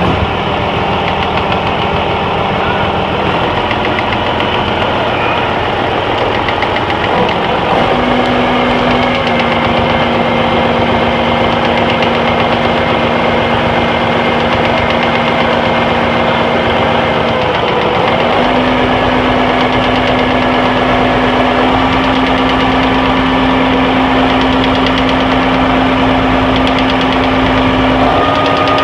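Yanmar 6KH diesel engine running with an abnormal noise, its speed shifting in steps several times: down a little a few seconds in, up around eight seconds in, a brief dip and rise past the middle, and up again near the end.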